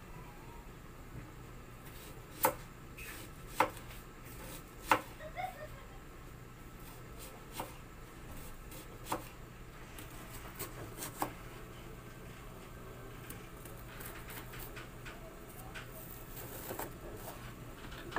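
Kitchen knife slicing a red onion on a plastic cutting board: a handful of sharp knocks as the blade meets the board, a second or more apart and fading to lighter ticks near the end, over a low steady hum.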